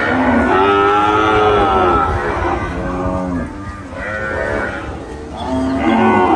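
Cattle mooing: a long moo at the start, a shorter, lower one about halfway through, and another starting near the end.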